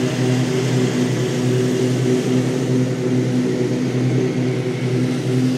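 A steady mechanical hum at a constant low pitch, running without change.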